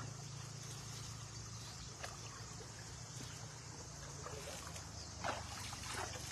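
Shallow stream water flowing steadily, with hands splashing and sloshing in the water a few times, more toward the end.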